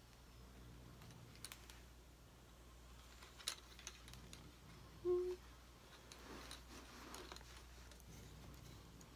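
Faint clicks and light knocks of resin ball-jointed doll parts and steel tools being handled while the stringing elastic is hooked onto the last foot under full tension. A brief pitched note about five seconds in is the loudest moment, followed by soft rubbing.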